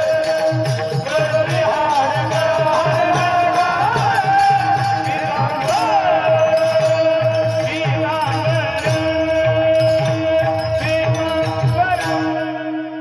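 Marathi kirtan devotional music: a voice singing a winding melody over a steady held drone, with a regular drum beat and small cymbals ticking in time.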